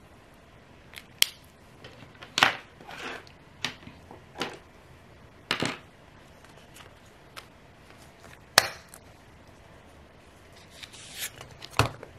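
Desk handling sounds: scattered sharp clicks and taps from a pen and short rustles from paper sticker sheets being picked up and flipped. The sharpest clicks come about a second in and again just past eight seconds, with a soft thump near the end.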